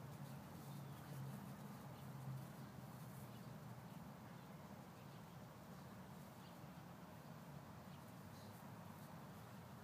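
Near silence: faint outdoor ambience with a steady low hum and a few faint, short high chirps.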